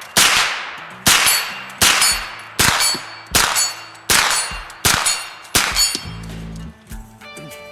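Colt AR-15 9mm carbine fired eight times at a steady pace of about one shot every three-quarters of a second, each shot trailing off in a ring. Near the end, music comes in.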